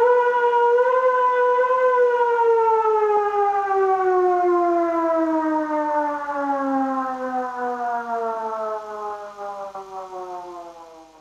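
Civil defense siren winding down: its tone holds for about two seconds, then falls steadily in pitch and fades out near the end.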